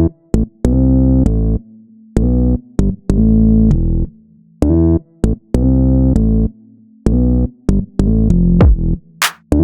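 Background electronic music: short, choppy synthesizer chords that start and stop abruptly, with brief gaps between them.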